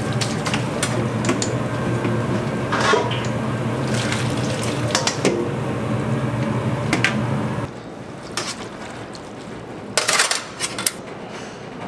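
Tap water running and splashing over noodles in a colander at a stainless steel sink, with clacks of the colander and metal bowls and a steady low hum behind. About eight seconds in it cuts to a quieter room, with a few sharp metal clinks near the end.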